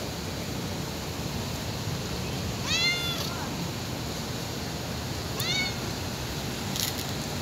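Domestic cat meowing twice: a longer meow that rises and falls about three seconds in, and a shorter one a couple of seconds later.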